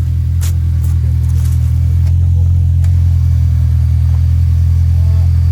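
Side-by-side UTV engine running steadily with a low, even drone that builds slightly. A few sharp light clicks sound in the first three seconds.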